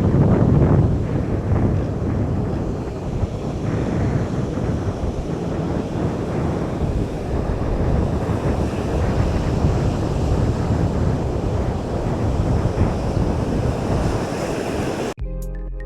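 Surf washing on a beach, with wind buffeting the microphone as a heavy low rumble. Near the end it cuts off abruptly and electronic music begins.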